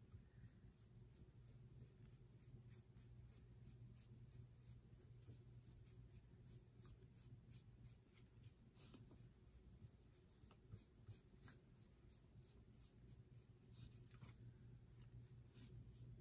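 Near silence under a steady low hum, with faint soft scuffs and taps of a foam sponge brush being dabbed and pushed over an ink-coated metal tray.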